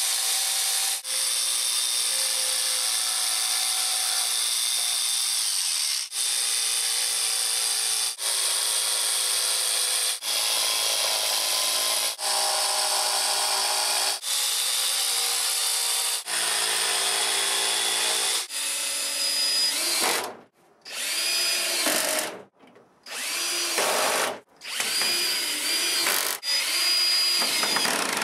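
Corded jigsaw cutting through a plywood board in a string of long runs, with brief pauses between them. About twenty seconds in it gives way to a cordless drill running in short stop-start spurts with a high whine.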